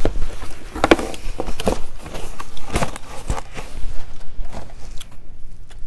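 Close-miked handling of takeout food and its packaging: scattered knocks, taps and rustles at irregular intervals.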